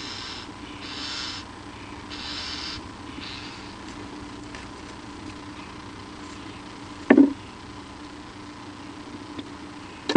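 A bird at its nest gives a single short, sharp sneeze about seven seconds in, after a few soft hissing breaths, over a steady electrical hum from the nest camera's microphone.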